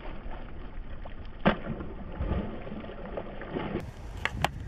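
A hooked bass splashing and thrashing at the lake's surface while being played on a rod, over a steady noisy background, with one sharp knock about one and a half seconds in.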